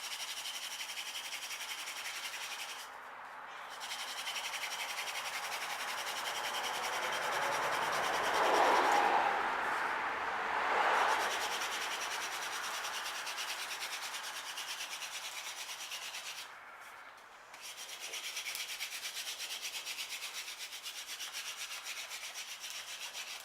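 Wooden hand-drill spindle spun back and forth between the palms, grinding in the notch of the hearth board with a fast, steady rubbing: friction fire-making, drilling down to build an ember. The rubbing stops briefly twice and is loudest about halfway through.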